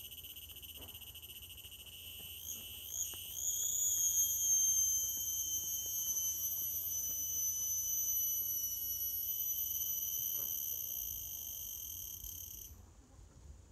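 An insect calling: a continuous high-pitched buzzing whine made of several steady tones. It wavers in pitch and swells about three seconds in, then fades out near the end.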